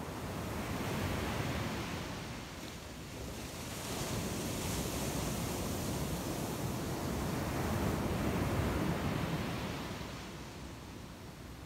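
Ocean surf breaking on a sandy beach, a steady wash of noise that swells and falls back three times.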